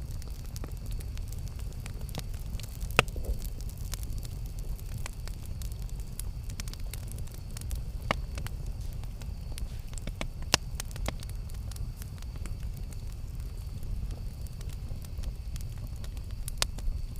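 Campfire burning with a steady low rumble and scattered sharp crackles and pops, a few louder snaps among them.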